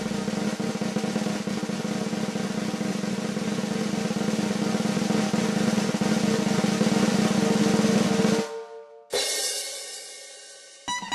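Snare drum roll, swelling slightly for about eight seconds, then cut off by a single ringing crash that fades away; plucked guitar music starts just before the end.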